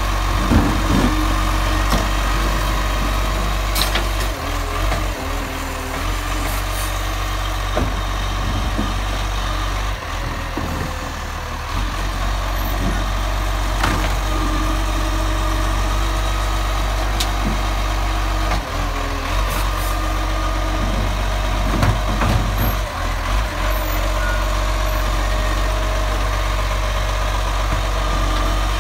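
Side-loading garbage truck's diesel engine idling steadily, with a few sharp clanks scattered through.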